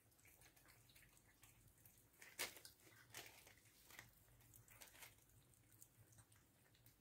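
Cats eating chunks of wet cat food from a stainless-steel bowl: faint, scattered clicks of chewing, the loudest about two and a half seconds in.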